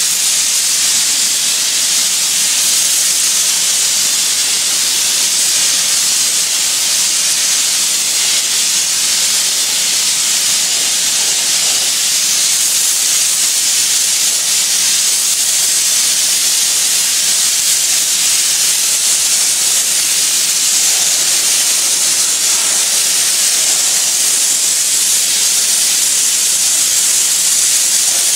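Oxy-acetylene powder flame spray gun running continuously with a steady, high hiss from its flame and gas jet as it sprays molten metal powder onto a workpiece.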